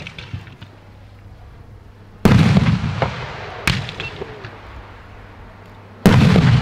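Mohl One-Shot 38 single-shot fireworks tubes firing titanium salute shells with gold tails. A sharp launch crack comes first. A loud bang follows about two seconds in and another near the end, each trailing off in a long echo, with a single sharper crack between them.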